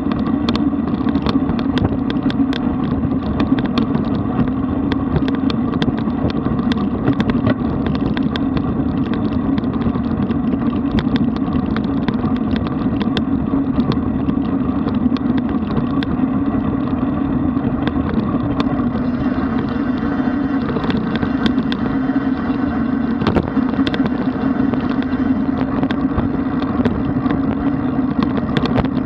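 Steady wind rush and road noise from riding a road bicycle, with many small clicks and rattles throughout.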